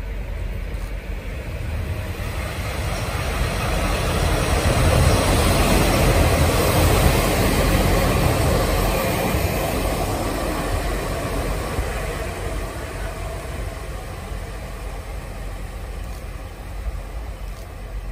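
Two-car diesel railcar train, DR2102 coupled with 2404, passing through an underground station. Its rumble builds to a peak about five to eight seconds in as it goes by, then slowly fades as it runs off.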